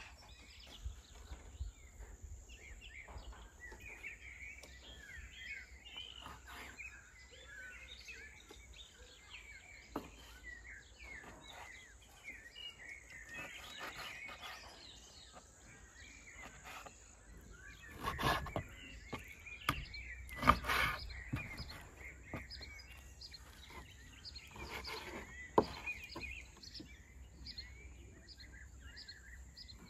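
Small birds chirping and twittering throughout. Over them come a few sharp knocks and scrapes, bunched about two-thirds of the way through with one more near the end: a knife cutting meat on a wooden board.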